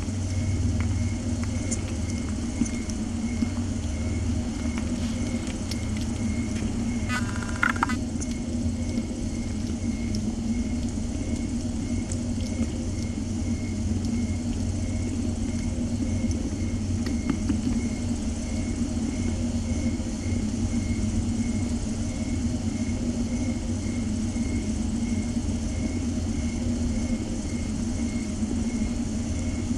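Steady low rumble of a mother cat purring while she nurses her kittens, with a short high kitten squeak about seven seconds in.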